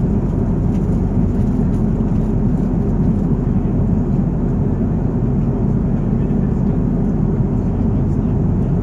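Steady cabin noise of a jet airliner in flight: an even, unbroken rumble of engines and airflow, heaviest in the low end.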